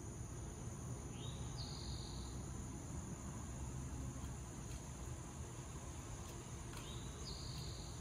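Steady high-pitched chorus of crickets or other night insects, with a bird calling twice, about six seconds apart: each call rises and then holds for about a second.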